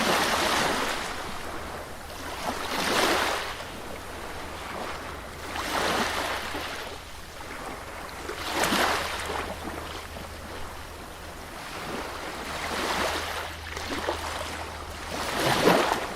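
Sea waves breaking on a beach: about six surges of surf, one every two to four seconds, each swelling and washing away, over a steady low rumble.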